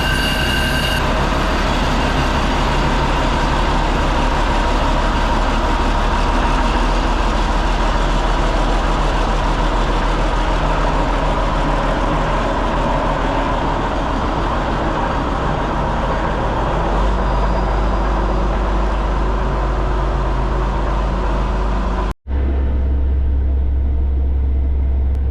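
Farm tractor engine running steadily. About 22 seconds in it cuts off abruptly and comes back as a deeper, lower-pitched engine sound.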